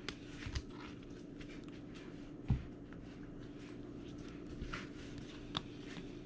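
Trading cards handled quietly: a few faint soft clicks and slides as cards are moved through a pile, with one soft thump about two and a half seconds in, over a steady low hum.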